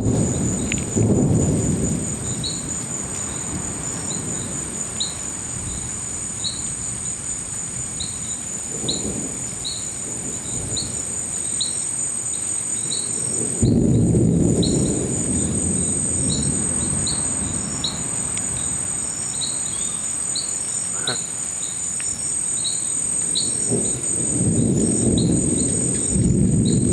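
Thunder rumbling in several rolls, the strongest beginning about halfway through and another building near the end, over a steady shrill chorus of crickets and other night insects with short chirps repeating throughout.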